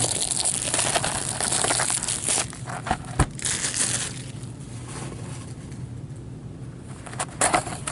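Clear plastic shrink-wrap being torn and crumpled off a sealed hockey card box, crinkling for the first couple of seconds, then a single sharp knock about three seconds in, followed by quieter handling.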